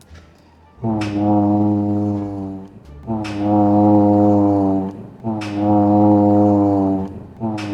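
A deep, brass-like horn note sounded four times, each held steadily for about two seconds with a sharp start.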